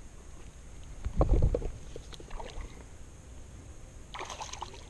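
Sounds aboard a small fishing skiff on the water: a low steady rumble, a loud low thump about a second in, and a short hiss near the end.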